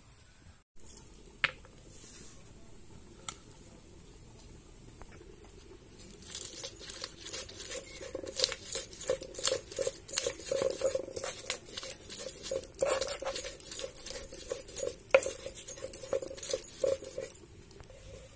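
Green chillies and garlic being crushed and ground on a flat grinding stone with a hand-held stone, a quick run of stone-on-stone scraping and knocking strokes starting about six seconds in.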